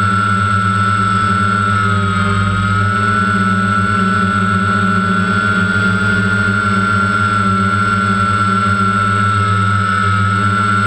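Electric motors and rotors of a remote-controlled camera helicopter in flight, heard from the onboard camera: a steady high whine over a low hum, its pitch wavering slightly.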